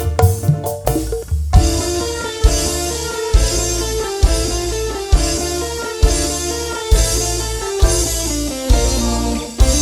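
Live band music played through a PA sound system during a sound check: a quick drum fill, then about a second and a half in the full band comes in, guitar over a steady beat of roughly one strong bass hit per second.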